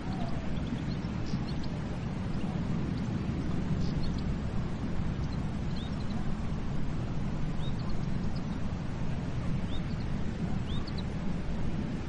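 Sea surf making a steady low rush, with small birds giving short high chirps now and then over it.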